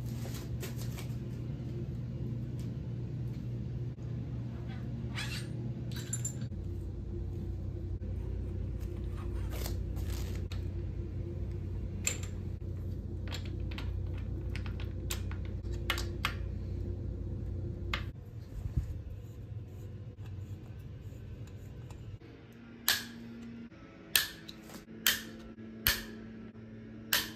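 Quiet background music with steady low notes, over scattered metallic clicks and taps from hand tools and parts on a bicycle being assembled. In the last few seconds come five sharper clicks about a second apart.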